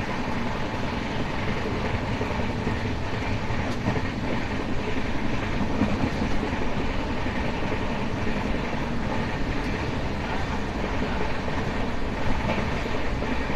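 Express train passenger coach running at speed, heard at an open coach doorway: a steady rumble of wheels on rail mixed with rushing air. A single sharper knock comes about twelve seconds in.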